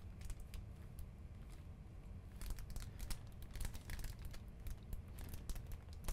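Faint, irregular clicks and light rustling from handling a motherboard on a workbench, as the board is shifted about under a microscope. A low steady background hum sits underneath.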